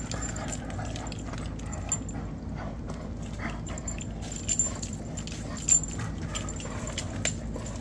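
A dog playing tug-of-war over a stick held by a person: a few short, sharp sounds scattered through, the loudest a little past halfway, over steady low background noise.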